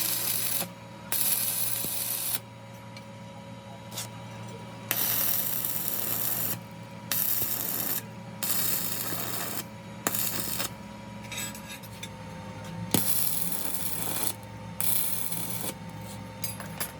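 Repeated rough rasping strokes on metal, each about one to two seconds long with short gaps between, over a steady low machine hum.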